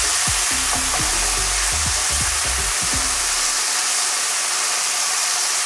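Sirloin beef strips sizzling steadily in hot oil in a wok as they are seared and turned with a slotted plastic spatula. Light knocks and scrapes of the spatula against the pan come through for the first three seconds or so.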